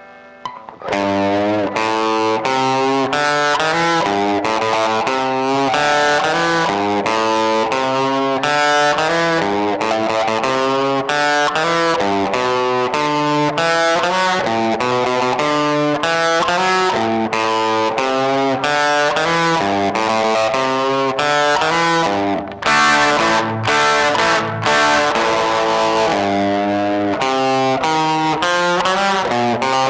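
Electric guitar played through distortion, a busy riff of quick picked notes, as a check of its amp tone. It starts about a second in and breaks off briefly a little past two-thirds through.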